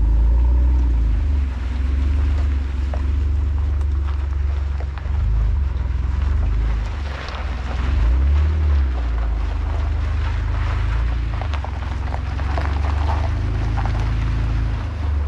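Jeep Wrangler driving across a pebbly beach, its engine running with a steady low drone whose pitch shifts about eight seconds in. A grainy crackle of tyres on pebbles and sand lies over it.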